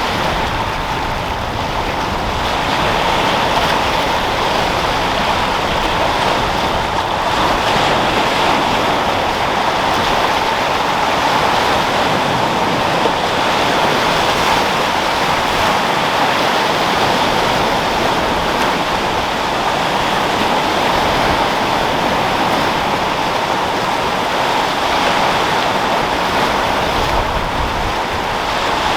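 Sea waves and wind: a steady, continuous rushing of surf with only slight swells in level.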